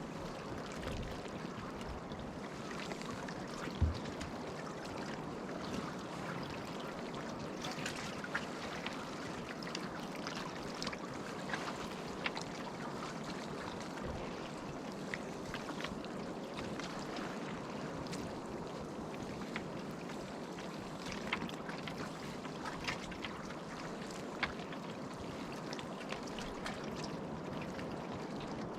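Steady wash of sea water lapping around a moored fishing raft, with scattered faint clicks and a single thump about four seconds in.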